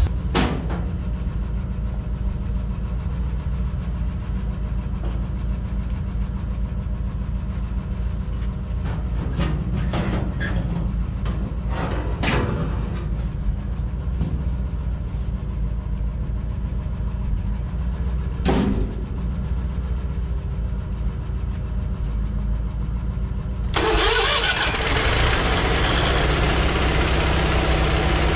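An engine idling steadily, with a few sharp knocks and clicks over it. About 24 seconds in, a louder, hissier machine sound joins in.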